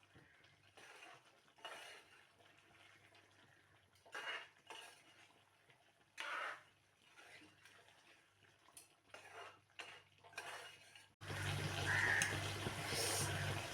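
Scattered clinks and clatter of dishes and utensils being handled in a kitchen, one short sound every second or two. About eleven seconds in, the sound jumps louder with a steady hum, and a crow caws once.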